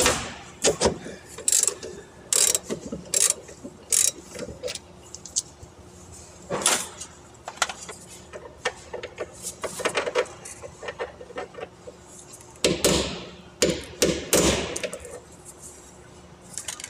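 Hand tools on a broken bolt stub under a truck chassis: irregular sharp metal clicks and knocks, with a cluster of heavier knocks about three-quarters of the way through.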